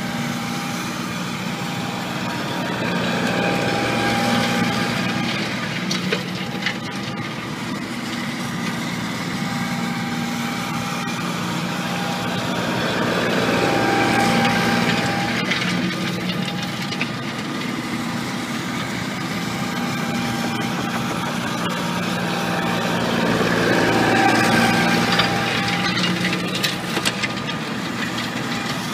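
Massey Ferguson 1531 compact tractor's diesel engine running steadily while it tows a box grader over loose soil. It grows louder three times, about ten seconds apart, as it circles nearer, with a few sharp clicks about six seconds in and near the end.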